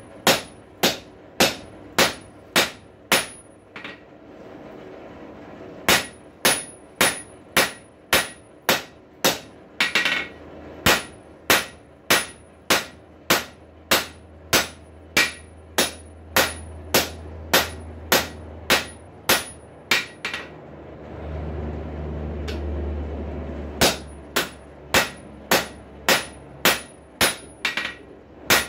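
Blacksmith's hammer striking a hot rail spike on an anvil, forging it toward a strap hinge: a steady rhythm of about two blows a second, each with a bright metallic ring. The blows stop briefly about four seconds in, and again for a couple of seconds past the twenty-second mark, where a low rumbling noise rises.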